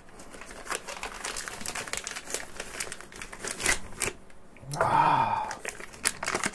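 Packaging crinkling and rustling in irregular crackles as a newly unboxed audio DAC is handled and unwrapped. A brief hum from a voice with falling pitch comes about five seconds in.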